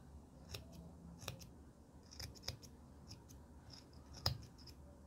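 Scissors snipping irregularly through the yarn of a wool pompom, trimming it round; faint snips come about a second apart, the sharpest a little after four seconds in.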